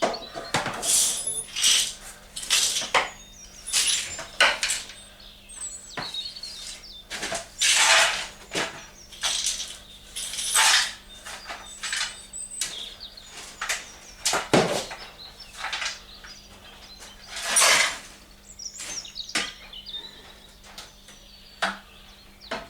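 Irregular clatter of hard objects being handled and set down: clinks, knocks and short scrapes, one or two a second, over a faint steady hum.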